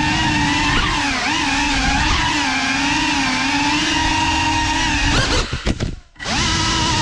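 Cinelog 35 ducted cinewhoop drone's motors and propellers whining steadily, the pitch wavering with the throttle. About five seconds in the whine drops away and almost cuts out for a moment, then climbs back up as the throttle comes back on.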